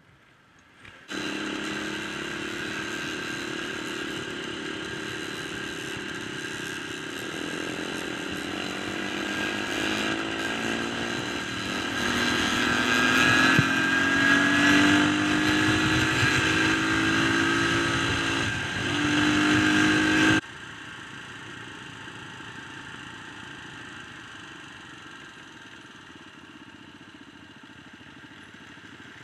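Dirt bike engine under way, its pitch rising and falling as it is revved and shifted. It starts about a second in, grows louder, then cuts off suddenly about two-thirds of the way through to a quieter, steady engine sound.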